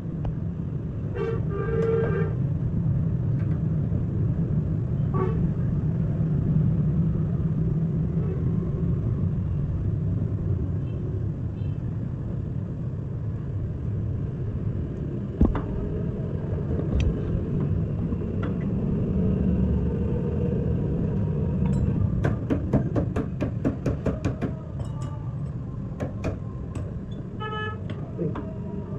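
Steady low rumble of a motor vehicle, with short car-horn toots about a second in and again near the end. A quick run of sharp clicks or taps comes about two-thirds of the way through.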